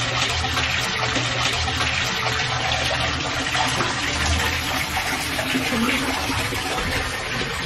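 Water pouring from a wall fountain's spout and splashing into the basin below in a steady, continuous rush.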